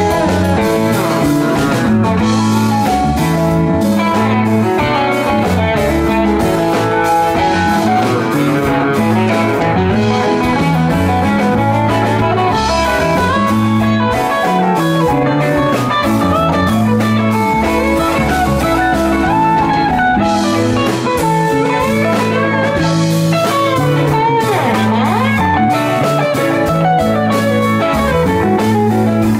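Live rock band jamming: an electric guitar plays lead with bent notes over a repeating bass line, drums and keyboard.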